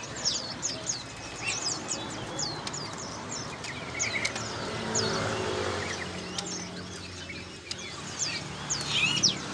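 Many caged birds at a bird kiosk chirping all at once: a dense, continuous chorus of short, high chirps.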